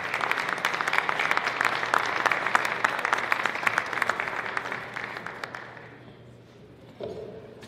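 Audience applauding, a dense patter of many hands clapping that dies away after about six seconds.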